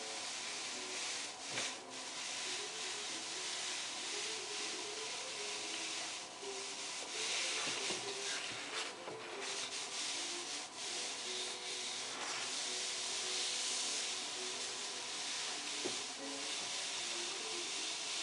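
Chinese painting brush rubbing and stroking across paper: a dry, scratchy rustle that swells and fades with each stroke.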